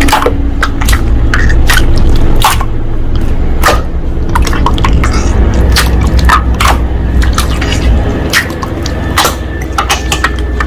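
Slime being squished and kneaded by hand, with many quick wet pops and clicks, several a second.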